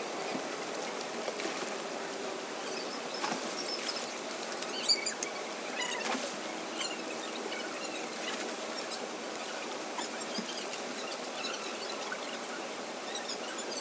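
Water in a rocky river pool splashing and lapping as swimmers wade and move about, over a steady rush of flowing water, with scattered small splashes and drips; the loudest splash comes about five seconds in.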